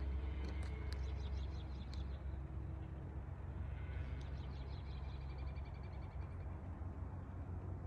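Rapid chirping trills of small calling animals, two runs of quick repeated chirps, over a steady low engine hum from heavy machinery.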